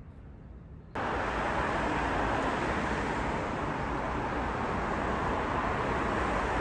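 Steady roar of city street traffic, cutting in abruptly about a second in after a faint low hum.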